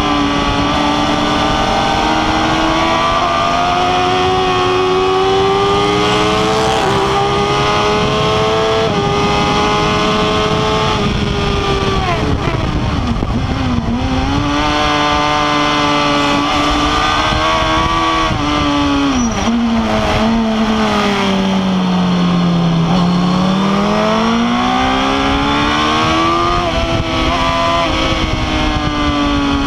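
Suzuki GSX-R 1000 K8's inline-four engine at full racing pace on track, over wind noise. The revs climb and step through upshifts, fall away twice under braking and downshifts, about 12 and 19 seconds in, and pull up again out of the corners.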